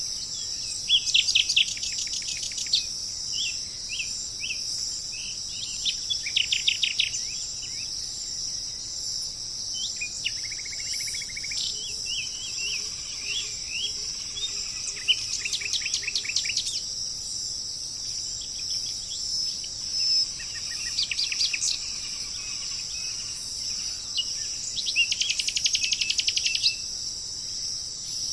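Forest birds calling in repeated bouts of rapid trilled notes, over a steady high-pitched chorus of insects such as crickets.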